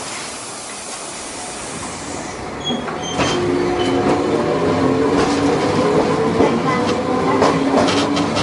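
Inside the cabin of a Tosaden 700-type tram with rheostatic control and nose-suspended traction motors. A hiss is heard for the first couple of seconds. About three seconds in the tram gets louder as it moves off, with a steady whine from the traction motors and gears over the running noise and clicks of the wheels on the rails.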